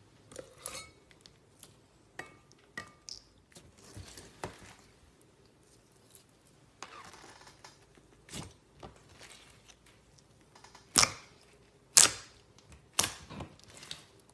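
Slime being squeezed and stretched by hand, with a series of sharp clicks and pops as air pockets burst, and three loud pops near the end.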